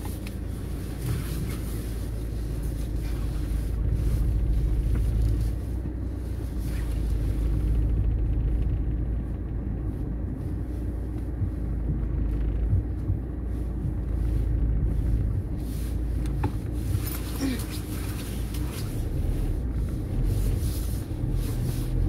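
Car driving slowly on snowy roads, heard from inside the cabin: a steady low rumble of engine and road noise.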